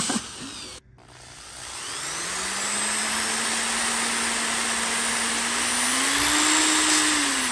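Power drill spinning a broken speedometer cable that drives a 1967 VW Type 3 speedometer. An earlier run cuts off just under a second in. The drill then winds up to a steady whine, speeds up a little about six seconds in, and begins to slow near the end.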